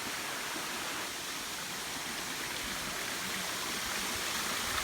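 Steady rush of a waterfall and the stream below it, an even hiss of falling and flowing water.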